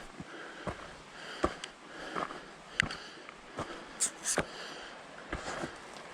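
A hiker's footsteps on a trail at a steady walking pace, about one step every three-quarters of a second, over his audible breathing, with a loud sharp breath about four seconds in.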